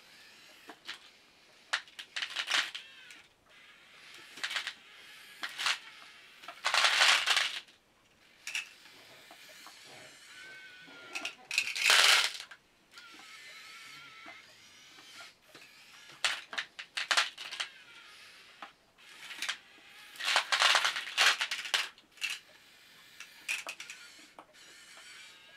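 Small electric gear motors of a 1/50 radio-controlled model Komatsu PC1250-8 excavator whirring in repeated short bursts, with a thin rising whine in places and plastic clicking and rattling between the movements.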